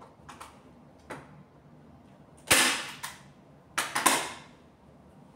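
Staple gun firing staples to fasten fabric to a bed frame: two light clicks in the first second, then a loud sharp snap about two and a half seconds in and a quick double snap near four seconds.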